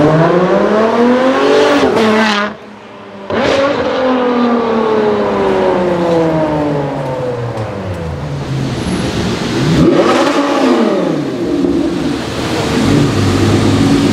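Ferrari 599's V12 accelerating hard, its pitch climbing for about two seconds. After a short break the note winds down for several seconds, then rises and falls again about ten seconds in.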